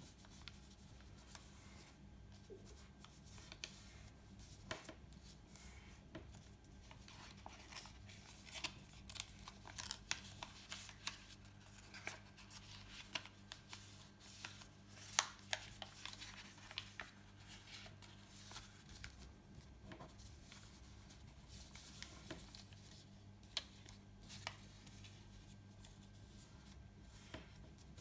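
A sheet of paper being folded and creased by hand: scattered crackles and rustles, busiest in the middle, over a faint steady low hum.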